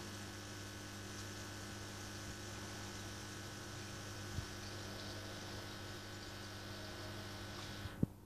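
Aquarium air pump humming steadily, with a hiss from the air-stone bubble curtains. The hiss falls away near the end. A light knock comes about four seconds in and a sharper click near the end.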